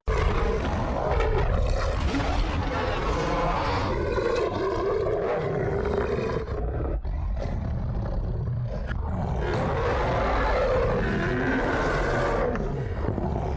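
Film werewolf sound effect: long, rough, throaty roaring with a deep rumble, briefly breaking off about seven seconds in.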